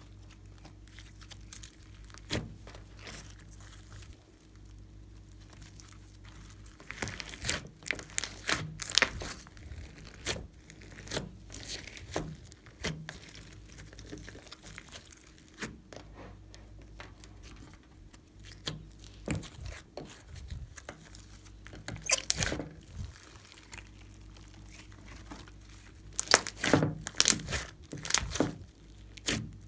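Glossy slime with foam beads and clay pieces being stretched, folded and pressed by hand: irregular sticky pops, crackles and tearing sounds that come in clusters, loudest near the end.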